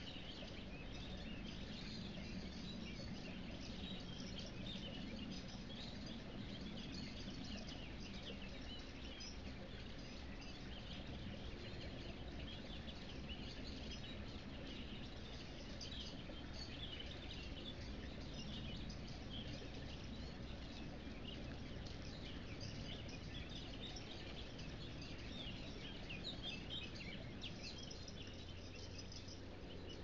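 Forest ambience: many small birds chirping and twittering throughout, over a steady background hiss.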